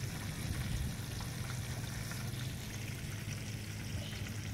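Fish sizzling in hot oil in a frying pan on a portable camp stove: a steady hiss, with a low, even rumble underneath.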